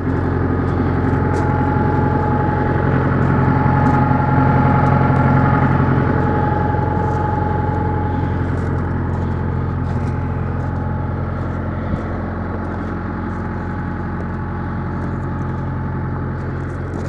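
An engine idling steadily: a low, even hum with a faint held whine above it. Light ticks of footsteps on gravel come and go.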